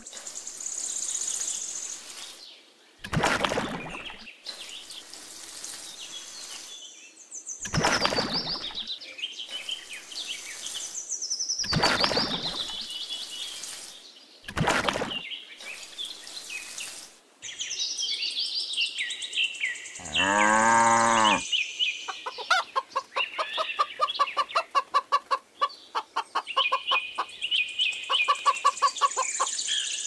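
Farmyard animal sounds: bird chirps and livestock calls, with one long call falling in pitch about two-thirds of the way through, followed by rapid repeated calls.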